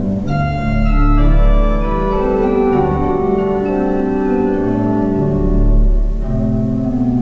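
Organ music: slow sustained chords that change about once a second, with deep bass pedal notes entering about a second in and again near the end.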